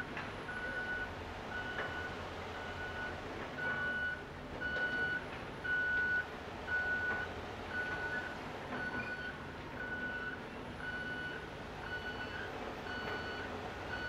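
Reversing alarm of a Caterpillar bulldozer beeping steadily, a single-pitched beep a little under twice a second, over the low rumble of its diesel engine as it backs up.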